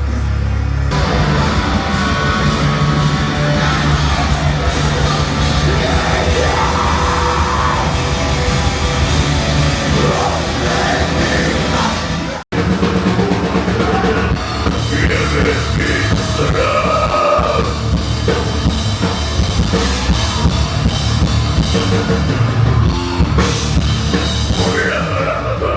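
Heavy metal music with a pounding drum kit, cut off for an instant about halfway through and then starting again.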